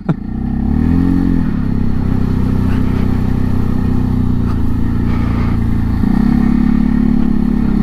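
Segway Snarler AT6 SX 570 ATV's 570cc single-cylinder engine engine-braking down an icy hill with the throttle released: a steady drone whose pitch shifts up about a second in and again about six seconds in. The engine braking is strong.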